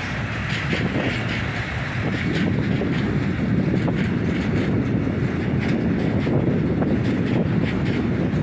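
Freight train of open coal wagons rolling past over a railway bridge: a steady rumble with wheels clicking over the rail joints.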